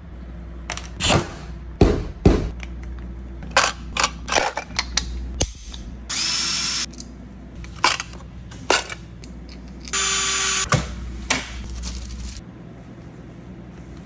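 Golf-club building work sounds: a string of sharp clicks and taps, with two short, steady hissing bursts about six and ten seconds in, over a low hum that stops near the end.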